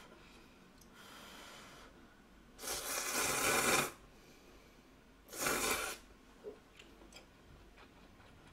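A person slurping instant ramyeon noodles twice: one long, loud slurp of over a second, then a shorter one about two seconds later.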